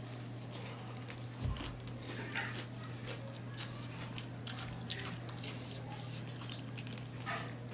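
A person eating: chewing, with scattered small wet smacks and clicks of mouthfuls, over a steady low hum.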